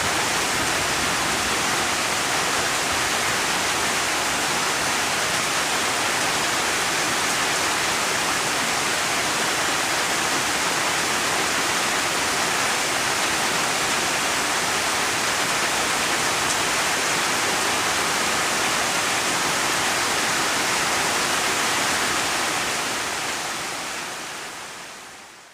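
Steady rain, an even hiss with no single drops standing out, fading out over the last few seconds.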